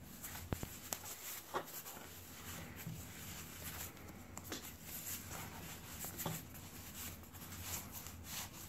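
Faint rubbing and rustling of a fabric wrist-guard sleeve being handled as a gel insert is worked into its pocket, with a few light ticks and clicks.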